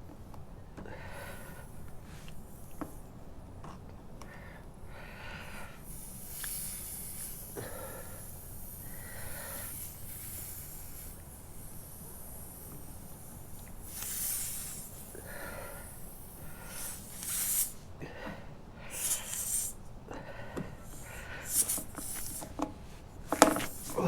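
A man breathing hard through his nose in short puffs while straining with pliers to pull a screw out of a motorcycle tyre, with small clicks of the tool on metal that get louder near the end.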